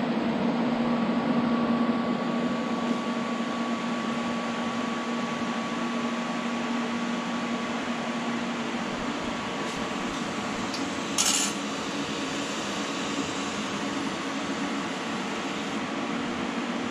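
TIG welding on a steel T4 turbo adapter with a Lincoln Square Wave TIG welder: a steady hiss with a low hum through the first half, then a single sharp metallic clink a little past the middle.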